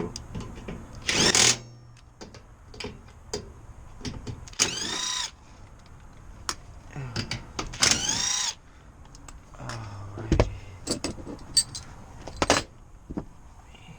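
Cordless power driver backing screws out of a furnace blower assembly, running in three short bursts about three seconds apart, its motor pitch rising and falling with each one. Clicks and knocks of screws and tools come between the bursts.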